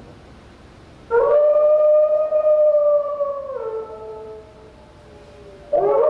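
Wolves howling: a long howl rises in about a second in, holds its pitch, then drops and fades. A new howl rises near the end, with two voices sounding together.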